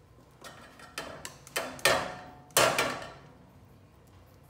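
A metal mesh strainer and ladle clanking against a stainless steel bowl and pots: several light taps, then two louder clanks about two and two and a half seconds in that ring briefly.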